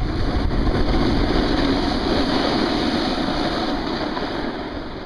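Wind buffeting the camera microphone: a loud, steady rushing rumble that swells over the first couple of seconds and eases a little toward the end.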